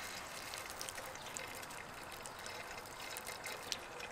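Liquid trickling steadily from the end of a hose onto grass: water being pumped out of the bottom of a diesel fuel filter bowl, a sign of water in the fuel.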